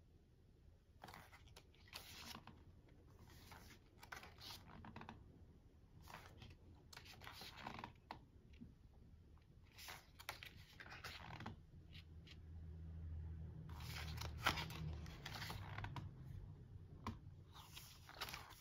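Pages of an album photobook being turned by hand: a soft paper swish roughly every second. A low rumble swells in the middle.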